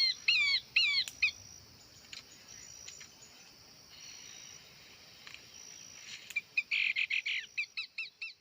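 A bird calling in a fast series of short, sharp chirps, about five a second, which stops after about a second; a thin steady high tone carries on faintly, then near the end a loud buzzy burst comes and the rapid chirping starts again, fading out.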